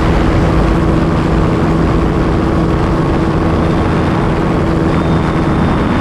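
Helicopter in flight, its engine and rotor running with a steady hum, heard from a camera mounted on the aircraft's exterior.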